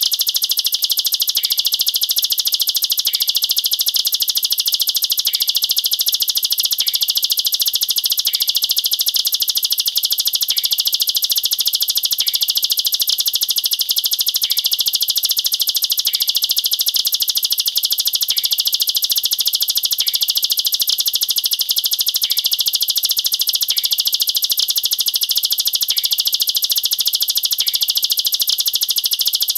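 Plain prinia (ciblek sawah) singing a continuous rapid-fire trill of high, sharp notes with no pauses: the dense 'nembak rapat' delivery used as tutor song for young prinias.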